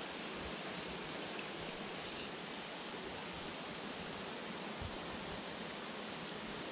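Small mountain brook running over rocks: a steady rush of water, with a brief hiss about two seconds in.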